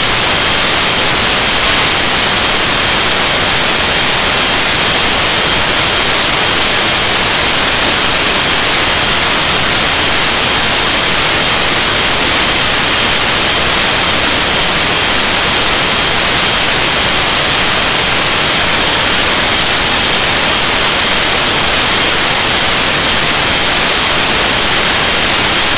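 Loud, steady static hiss that swamps the whole soundtrack. No gym or crowd sound comes through: the audio track of the old recording has failed.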